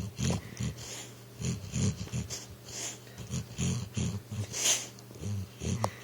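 Sleeping pit bull snoring and making short dream noises in clusters every second or two as he dreams of running, with a brief rising whimper near the end.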